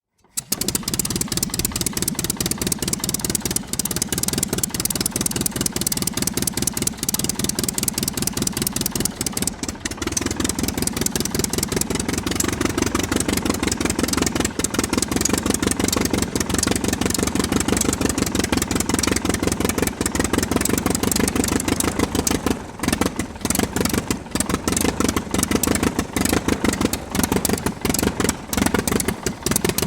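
Aircraft engine running with a rapid, even pulsing, its sound growing fuller about ten seconds in, with a few brief dips in level later on.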